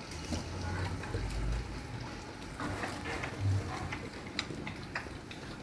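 Dogs eating chicken meat from steel bowls: wet chewing and lapping with scattered short sharp clicks. A couple of low dull thumps, the loudest near the middle.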